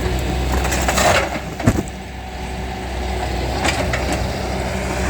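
Heavy machinery engine running steadily, with a few sharp knocks, the loudest a little under two seconds in.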